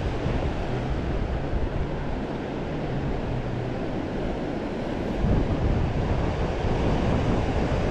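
Ocean surf washing steadily on a sandy beach, with wind rumbling on the microphone.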